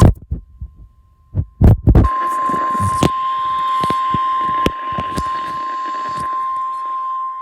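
Emergency Alert System attention tone for a severe thunderstorm warning: a single steady high tone that comes in loudly about two seconds in and holds, with a noisy hiss and scattered clicks under it. A few dull low thumps come before it.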